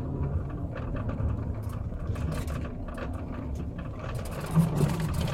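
Steady low engine and road rumble of a car heard from inside the cabin, with faint scattered clicks and a brief louder bump near the end.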